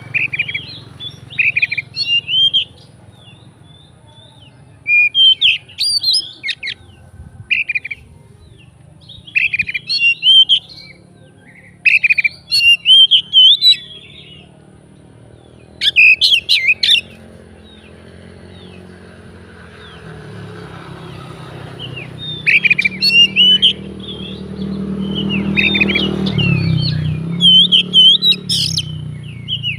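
Oriental magpie-robin (kacer) singing loud, varied phrases in short bursts with pauses between them, its song full of mimicked notes. A low steady hum runs underneath and grows louder in the last third.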